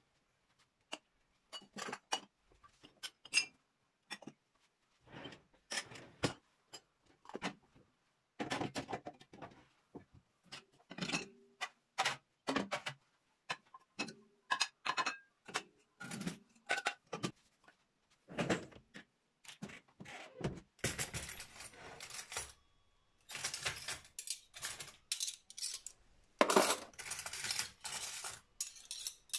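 Dishes, glasses and pots clinking and knocking as they are lifted out of dishwasher racks and put away. In the last several seconds it turns into a dense metallic clatter of cutlery dropped into a plastic drawer tray.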